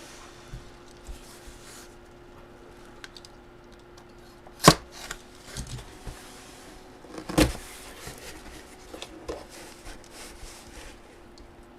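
Trading cards being handled on a table: light taps and handling noises, with a sharp knock a little under halfway through and another a few seconds later.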